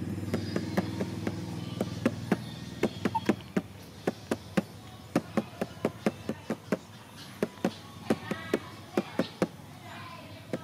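A run of sharp knocks or taps, unevenly spaced at about two or three a second. A low steady hum plays under the first few seconds and fades out about three and a half seconds in.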